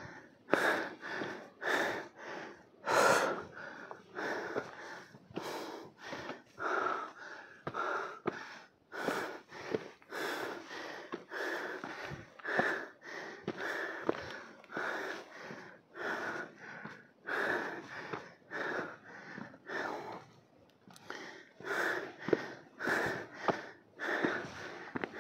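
A person breathing hard and fast, short rhythmic breaths at about one and a half a second: a hiker out of breath on a steep trail.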